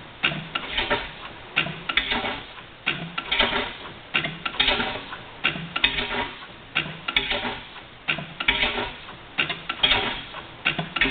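6 HP Reid stationary engine running, with a repeating clatter of sharp knocks, roughly two to three a second in uneven clusters.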